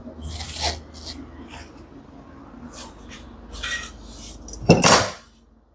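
Short scrapes and light knocks of hands handling a washing machine's metal inner drum back plate and spider, with a louder scrape lasting about half a second near the end.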